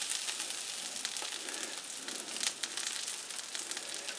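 Onions and steak sizzling on a hot griddle: a steady faint hiss with scattered small pops.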